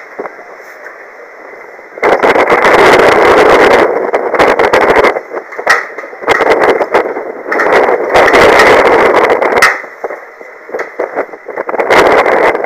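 Strong wind buffeting the microphone in loud, distorted gusts. A lull opens it, a gust hits about two seconds in, and more come and go with short lulls between.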